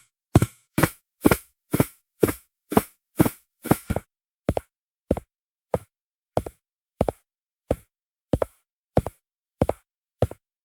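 Footsteps on a hard floor, each step a sharp hit, some doubled, heel then toe. They come quickly at about two steps a second, then slow to about three steps every two seconds about four seconds in.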